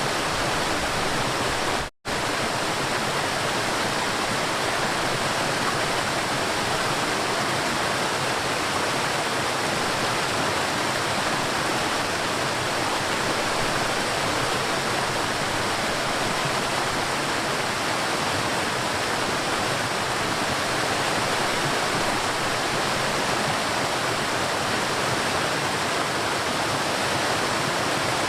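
River water rushing and flowing in a steady, even stream, with a brief dropout to silence about two seconds in.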